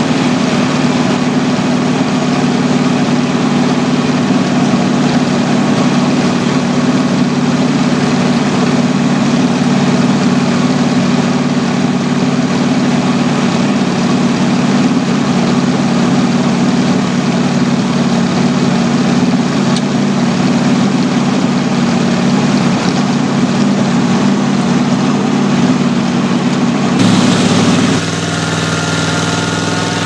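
The sawmill's 350 cubic-inch Chevrolet car engine running steadily at a constant speed. Near the end the sound changes abruptly to a different engine note.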